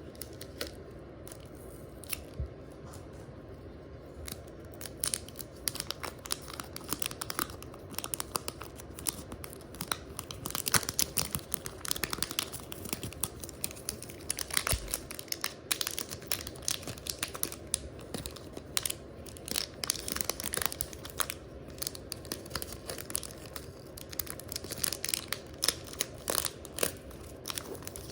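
Hands stretching and squeezing huka slime: a dense run of small crackles and tearing sounds that picks up after about four seconds.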